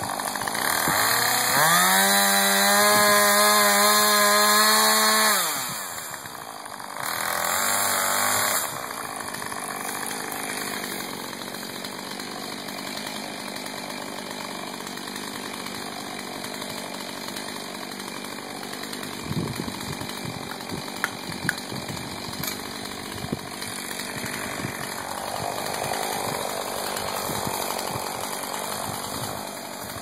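Husqvarna two-stroke chainsaw held at full throttle for about four seconds, dropping back, revving briefly again, then running at a lower steady idle for the rest. A few sharp knocks come about two-thirds of the way through.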